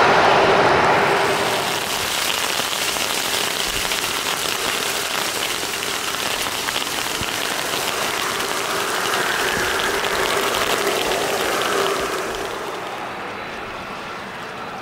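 Steady hiss of rain mixed with the whine of a Boeing 737-500's CFM56 jet engines running; the hiss thins out and the sound drops about twelve seconds in.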